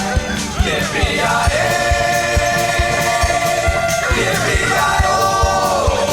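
Country-western song with a steady drum beat, a voice holding long notes over the band.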